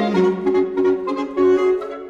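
Saxophone ensemble of soprano, alto, tenor and baritone saxophones playing held chords, with short low notes from the bottom of the group underneath.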